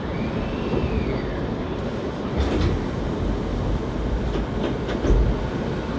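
Running noise inside a Hankyu 7300-series electric train car with a known unusual noise: a steady rumble of wheels and running gear. A faint whine rises and falls in the first second or so, and a hiss carries on for about two seconds midway.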